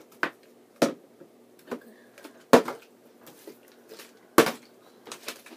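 Plastic water bottles flipped onto a wooden desk top, knocking down as they land or fall over: a series of separate sharp knocks, the loudest about two and a half and four and a half seconds in.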